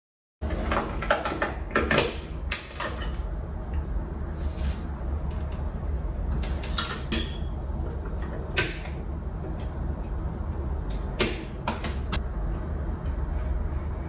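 Scattered plastic clicks, knocks and scrapes as an old wall light switch's cover is worked loose by hand and with a small screwdriver, over a steady low hum. The clicks come in a quick cluster in the first few seconds, then singly every couple of seconds.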